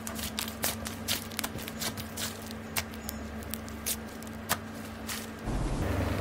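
Slime being worked by hand, giving a quick, irregular run of sharp clicks and pops. About five and a half seconds in, the sound changes abruptly to a louder, steadier hiss.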